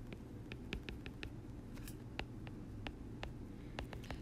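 Stylus tip tapping and clicking on an iPad's glass screen while handwriting: a string of short, sharp ticks at irregular spacing, about three a second, as each letter is written.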